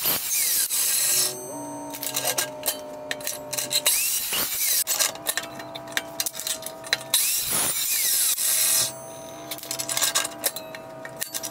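Evolution EVOSAW380 14-inch cold saw making several cuts through steel square tubing in quick succession. Stretches of hissing, rasping cutting alternate with stretches of a steady whine as the blade runs free between cuts.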